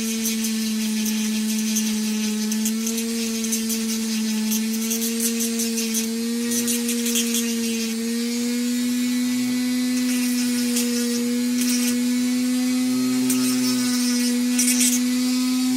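WEN 2305 rotary tool running through its flex shaft: a steady high whine that creeps slightly up in pitch. Over it comes scratchy grinding in on-and-off bursts as the bit works a rough edge off a cap.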